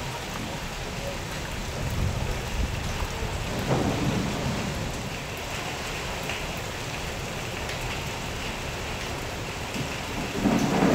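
Thunderstorm with heavy rain and gusting wind, a steady rushing noise that swells into louder rumbling surges a few seconds in and again just before the end.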